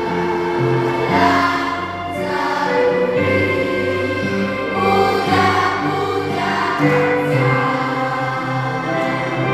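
Primary-school children's choir singing a song in held notes, over a steady low instrumental accompaniment.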